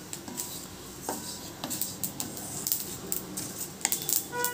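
White sesame seeds dry-roasting in a hot kadai without oil, crackling and popping as a spoon stirs them. The popping is the sign that the seeds are roasted and ready to come off the heat. Near the end the spoon knocks against the pan with a short metallic ring.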